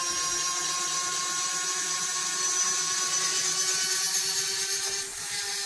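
A pair of LADO electric retract actuators whining steadily as their motors drive 1/5-scale Bf 109 undercarriage legs down, the whine dipping slightly about five seconds in.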